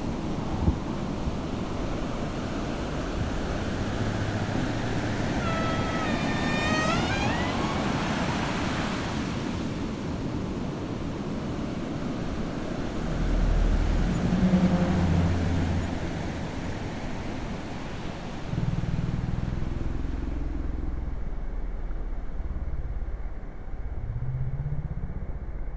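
Ocean surf washing in and breaking, a steady rushing noise. About six seconds in comes a single drawn-out high call. In the second half there are low humming tones, one of them rising near the end.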